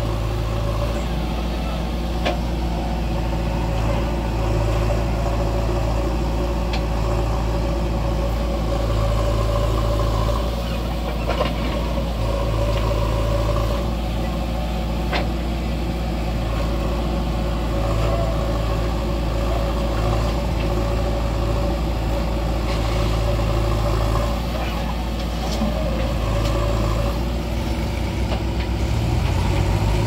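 Diesel engine of a JCB 3DX backhoe loader running while it digs and loads soil, its note swelling and easing every few seconds as the hydraulics take load. A few faint knocks come through.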